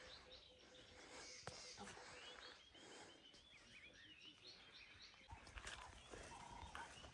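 Near silence with faint, scattered bird chirps and calls over quiet bush ambience.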